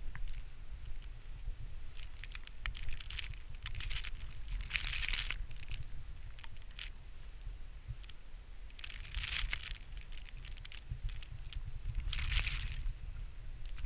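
Wind rumbling on the microphone, with three bursts of crunching, rustling noise and scattered clicks, like snow underfoot or clothing brushing the mic.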